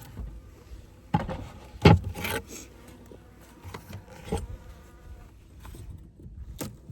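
Honeybees buzzing around an open hive, with several sharp knocks and scrapes of hive frames being handled. The loudest knock comes about two seconds in.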